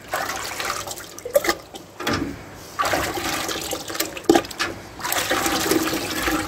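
Runny calcium carbonate slurry sloshing and splashing in a metal bucket as a crucible is pushed down into it by hand, swirled and lifted out. The sloshing comes and goes in uneven surges.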